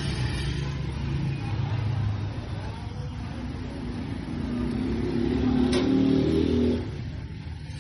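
Lathe motor running with a low hum. About halfway through a higher, louder motor note builds up, and it cuts off suddenly near the end. A sharp click sounds just before it stops.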